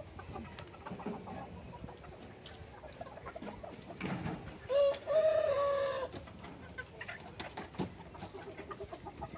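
Bantam chickens clucking softly, with one long held call from the flock about five seconds in.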